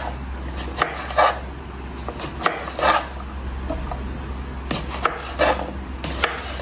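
Kitchen knife dicing cucumber strips on a wooden cutting board: about ten sharp, unevenly spaced knife strikes on the wood.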